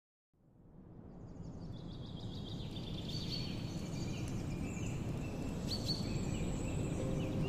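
Outdoor forest ambience fading in: a steady low rumble with birds calling above it in short high whistles and chirps. Music begins to come in near the end.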